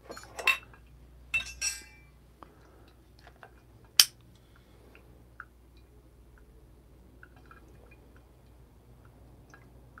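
Glass coffee carafes and brewers clinking and knocking as they are handled: two small clusters of clinks, one with a short ringing tone, near the start, then a single sharp click about four seconds in and a few faint ticks.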